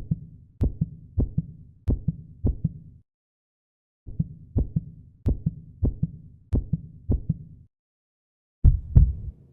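Heartbeat sound effects: steady lub-dub double thumps at about a beat and a half per second, in three separate clips with a second of silence between them. The third clip starts near the end and is louder.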